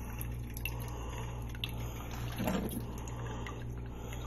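Drip coffee maker brewing: scattered drips of liquid, some falling onto the counter, over a steady low hum, with one brief louder sound about two and a half seconds in.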